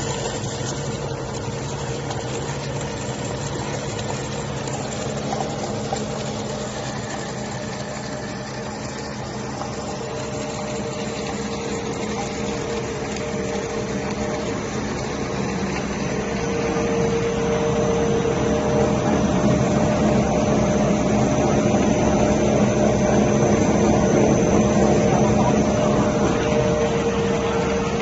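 Snack pellet processing line machinery running steadily: an even motor hum with a high whine over it, growing louder about halfway through.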